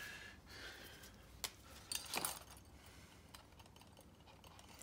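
A few faint, light clicks and taps from small objects being handled, about one and a half and two seconds in, with low room noise between them.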